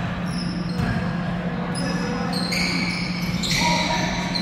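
Basketball being dribbled on an indoor court, with short, high sneaker squeaks coming and going and a steady low hum underneath.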